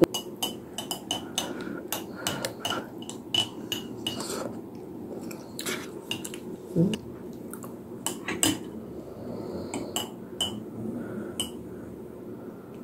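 Wooden chopsticks tapping and scraping against an instant soup cup while stirring: irregular clusters of sharp clicks that thin out in the second half.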